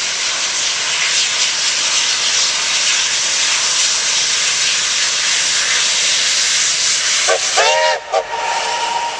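Steam locomotive venting steam with a loud, steady hiss. Near the end its steam whistle gives a few short toots.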